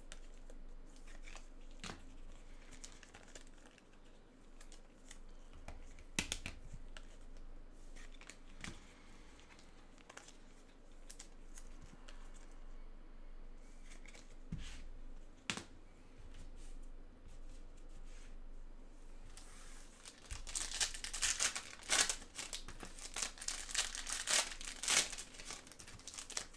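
Scattered clicks and rustles of trading cards and foil wrappers being handled, then for the last several seconds loud crinkling and tearing as a 2021-22 Select Basketball foil card pack is ripped open.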